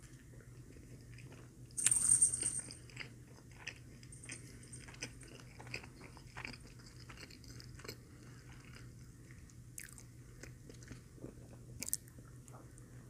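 Close-miked chewing of a Filet-O-Fish sandwich, with wet mouth clicks and smacks throughout and a louder burst about two seconds in. A fresh bite comes near the end.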